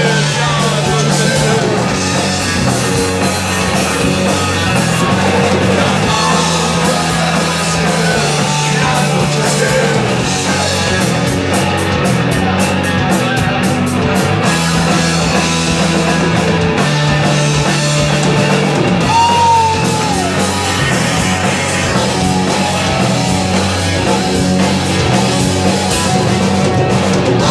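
A rock band playing loudly, with electric guitar, bass and drum kit; the bass line steps between a few notes and the level stays even throughout.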